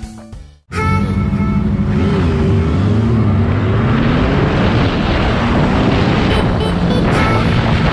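Motorcycle engine running at road speed, heard from an onboard camera with heavy wind rush. The sound cuts in about half a second in, and the engine pitch rises and falls a couple of seconds later.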